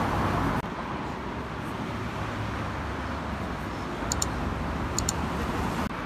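Steady road traffic noise from passing vehicles. In the second half come three short, sharp double clicks about a second apart: the mouse-click sound effects of a subscribe-button animation.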